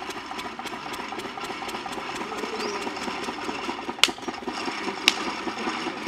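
A small engine running with a rapid, steady chugging as it winches a basket of rock up out of a hand-dug well on a rope. Two sharp clicks, about four and five seconds in.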